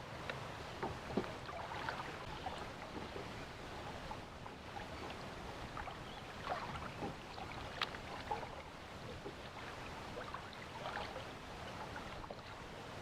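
Water lapping and splashing against the hull of a small anchored boat, with scattered light ticks and knocks. A couple of sharper clicks stand out, about a second in and near the middle.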